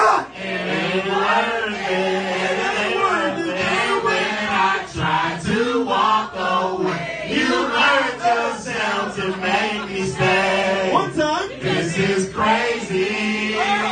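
Music playing with voices chanting and singing along, loud and continuous.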